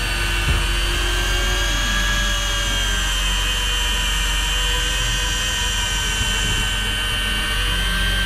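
Steady machine noise: a low engine hum with a high, steady motor whine above it.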